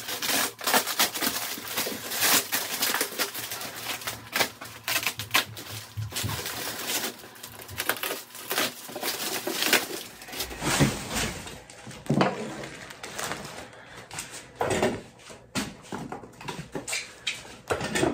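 Packing being pulled off a shipped guitar: foam pool noodles handled and knocked about, and plastic bags and wrap rustling and crinkling, with many irregular crackles and soft knocks.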